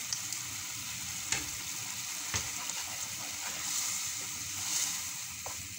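Tomato purée masala sizzling in an aluminium frying pan while it is stirred with a wooden spoon, with a couple of light clicks of the spoon against the pan.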